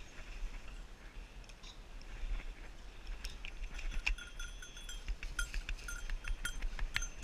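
Bell on a hunting setter's collar clanking in irregular strikes as the dog moves, each strike ringing briefly; they come thicker and louder from about three seconds in.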